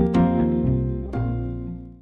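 Instrumental background music: sustained keyboard chords with new notes struck a few times, dying away near the end.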